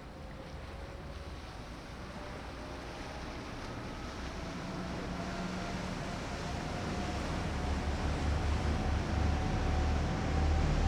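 A large car ferry's engines approaching: a low rumble grows steadily louder, with a faint whine slowly rising in pitch, over wind and water.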